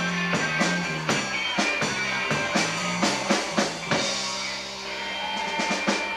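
Live rock band playing: electric guitars, bass guitar and drum kit on a steady beat. About four seconds in, the drum hits stop and a held chord with cymbals rings out, the song coming to its end.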